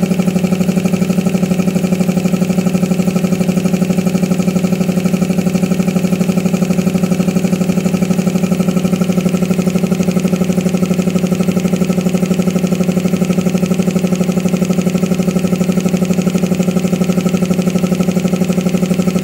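Piston air compressor running steadily under load, with a fast, even pulse from its pump as it builds tank pressure toward the pressure switch's cut-out.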